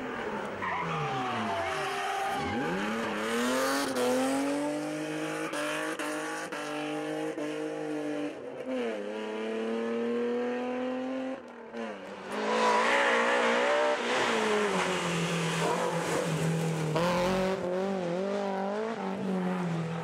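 BMW rally car engines at high revs. The pitch falls as a car brakes into a bend, then climbs through the gears with a short dip at each upshift. After a break about twelve seconds in, another car comes through with a wavering, fast-changing engine note.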